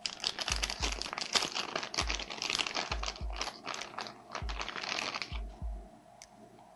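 Plastic anti-static bag crinkling and crackling as it is worked open and the card is pulled out; the crinkling stops about five seconds in.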